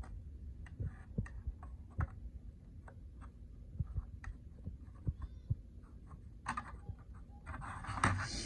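Scattered light clicks and knocks of small objects being handled, irregular and a second or so apart, over a low steady rumble.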